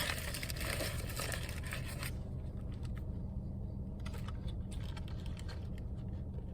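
Fast-food paper wrappers and packaging rustling and crinkling as the food is moved about, for about two seconds, then light taps and clicks of the containers being set down. A steady low hum runs underneath.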